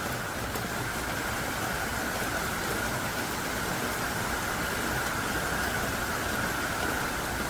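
Heavy downpour: a steady, even hiss of rain falling hard.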